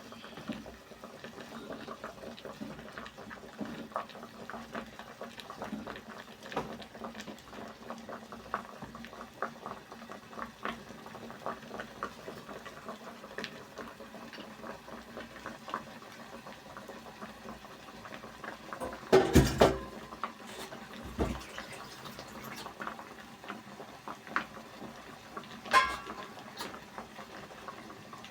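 Pot of sweet potato porridge bubbling on the heat, with a steady run of small pops and crackles. A few louder knocks come about two-thirds of the way through, and one comes near the end.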